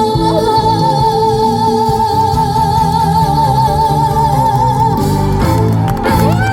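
Live trot song with its band backing, one long note with vibrato held for about five seconds over steady bass and chords, then the music changes near the end.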